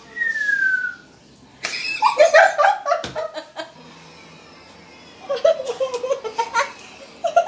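A person laughing in two bouts, the first starting suddenly about two seconds in and the second near the end. A short falling whistle-like tone sounds in the first second.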